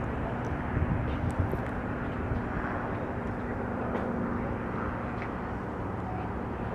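Distant jet engines of a Boeing KC-46A tanker running on the runway: a steady rumble with a low, even hum.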